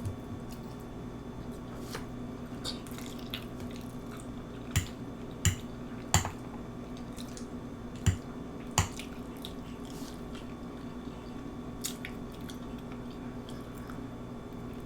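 Close-miked chewing with wet lip-smacks and mouth clicks, five louder smacks coming between about five and nine seconds in. A steady low hum runs underneath.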